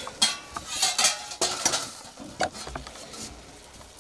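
Wooden spatula scraping and stirring chopped greens in a metal wok, a quick run of irregular strokes, with light sizzling from the frying underneath.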